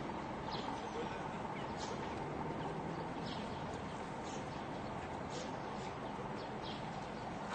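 Small birds chirping in short, scattered calls over a steady hum of city ambience; no chainsaw cutting is heard.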